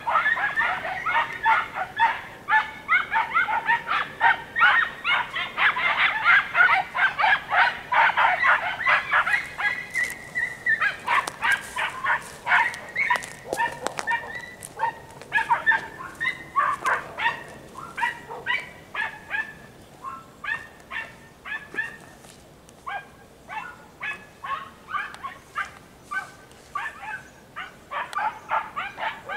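Several Andalusian podencos giving tongue in rapid, high-pitched yelping barks as they follow a rabbit's scent through thick cover. The barking is densest and loudest at first, then thins and grows fainter in the second half.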